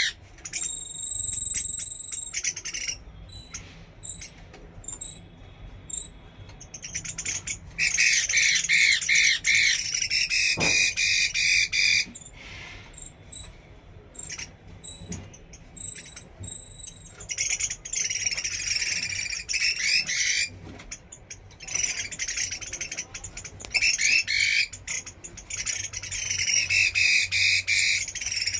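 Chinese hwamei singing loud, fast runs of repeated notes in bursts of a few seconds, broken by short pauses, with a clear whistled tone about a second in.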